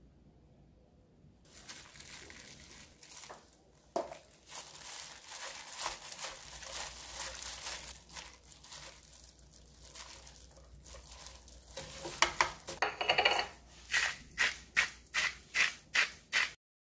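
Plastic-gloved hands squeezing and tossing shredded perilla leaves in a nonstick wok: a crinkly rustle of glove and leaves with occasional clicks. Near the end it turns into a quick run of short, sharp rustles, about two a second.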